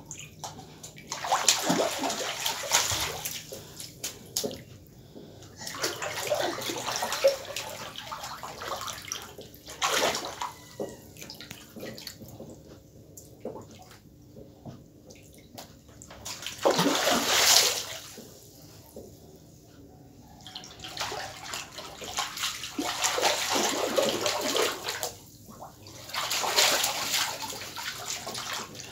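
Water splashing and sloshing in irregular bursts of one to three seconds, with quieter gaps between them; the loudest burst comes a little past halfway.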